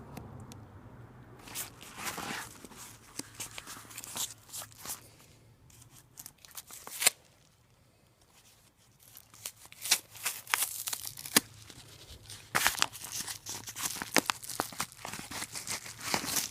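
A mail package being torn open by hand: packaging tearing and crinkling in irregular bursts, with a quiet pause in the middle and busier tearing in the second half.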